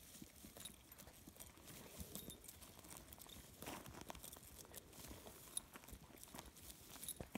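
Faint, scattered hoof steps and rustling of a mule walking over dry pasture grass, with a man's footsteps alongside.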